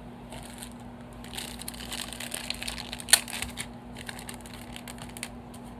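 Plastic packaging being handled and pulled open, crinkling and crackling in irregular bursts, with one sharp snap about three seconds in.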